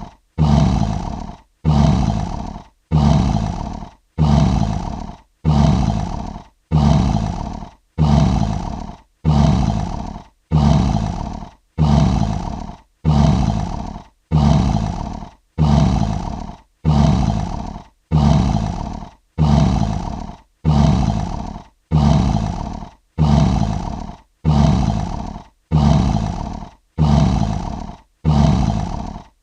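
Lion roaring: the same short, deep roar repeated over and over, about one every 1.3 seconds, each starting sharply and fading away, as a looped sound effect.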